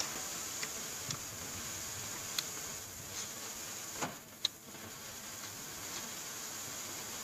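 Close-up eating sounds of a person chewing rice and grilled pork, with a few sharp mouth clicks and smacks over a steady high-pitched hiss.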